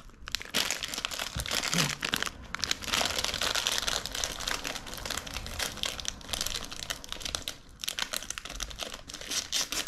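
Crinkling and crackling of a plastic Twisties cheese snack bag as it is handled and pulled open with both hands, in rapid irregular bursts with short breaks.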